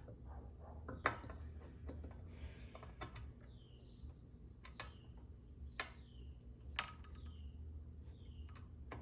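Light metal clicks and taps, about six spread over several seconds, as the camshaft and its gear are fitted into the small engine's crankcase and meshed with the crankshaft gear on the timing marks.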